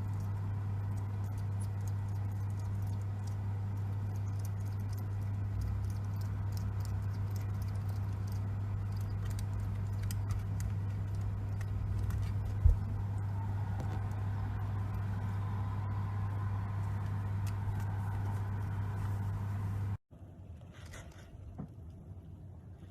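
Pet hedgehog's faint pattering and ticking movements over a steady low hum, with one sharp thump about two-thirds of the way through. Near the end the hum cuts off abruptly, leaving fainter scattered clicks.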